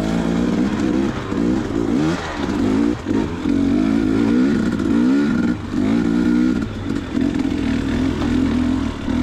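2019 KTM 250 XC two-stroke dirt bike engine revving up and falling back again and again, about once a second, as it is ridden under throttle through slow, technical terrain.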